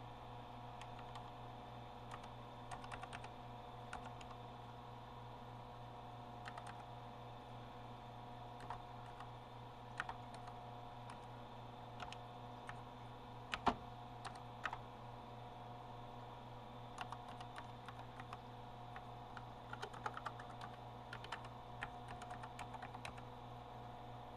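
Keys being pressed on a Compaq Portable keyboard newly fitted with replacement foam key pads, in scattered single strokes and short runs, over a steady hum.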